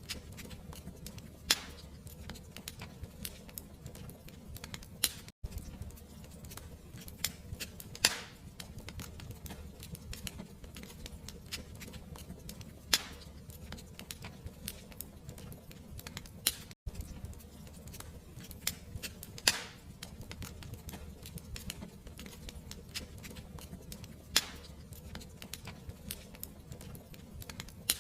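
Fireplace fire crackling over a low steady rumble, with many small crackles and a louder sharp pop every few seconds. The sound drops out for an instant twice.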